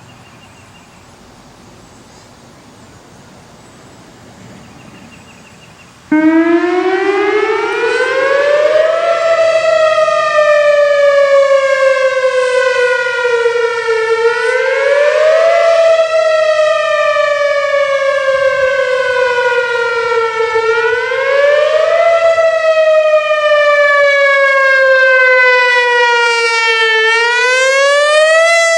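Whelen Vortex electronic outdoor warning siren sounding its wail tone. After about six seconds of quiet background it starts abruptly and climbs steeply in pitch. It then repeats a slow fall of about five seconds and a quick rise of a second or two. It is loud throughout.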